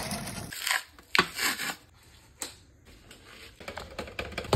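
Lit charcoal being poured from a chimney starter into a charcoal grill, a steady rattling noise that stops about half a second in. Then come a few short clicks and brief rubs, ending with a paper towel wiped over raw ribs on a metal sheet pan.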